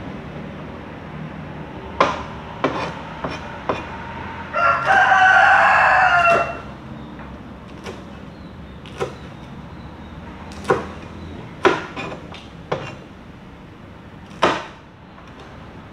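Cleaver chopping on a plastic cutting board, a dozen or so sharp knocks at irregular spacing. About four and a half seconds in, a rooster crows once for about two seconds, the loudest sound.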